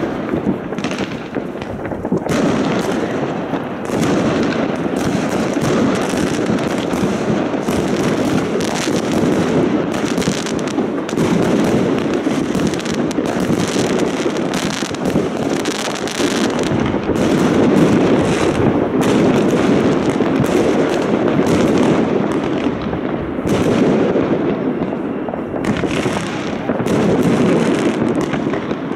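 Many aerial fireworks and rockets going off across a city at once: a loud, near-continuous din of overlapping bangs and crackles, with no let-up.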